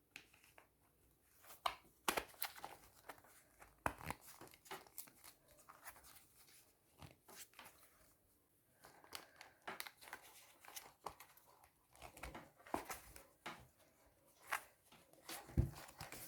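Crinkling plastic packaging and irregular sharp clicks and snaps as half-mask respirator parts are handled and fitted together, with a heavier knock near the end.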